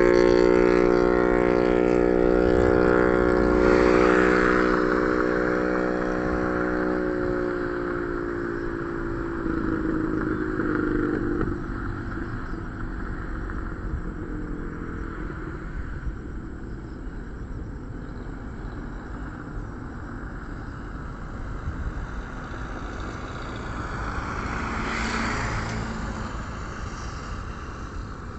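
Airbus A321-211 jet engines (CFM56-5B turbofans) at takeoff power, moving away: a stack of engine tones slowly falls in pitch over the first several seconds, then the sound fades to a fainter, steady rumble.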